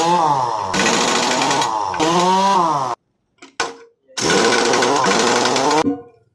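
A small high-revving motor running hard, its pitch sagging and recovering twice as if taking load. It cuts off abruptly about three seconds in, then comes back suddenly a second later and runs steadily until near the end.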